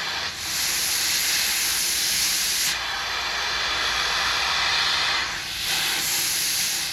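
Compressed nitrogen blowing through a long refrigerant line set during a flush, hissing loudly out of the open line end. Only gas comes out and no flush solvent, so the line is clean. The hiss eases briefly a few times.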